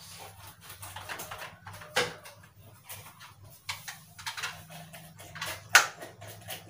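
Irregular small clicks and rustles indoors, with two sharper knocks, one about two seconds in and a louder one near the end, over a faint steady low hum.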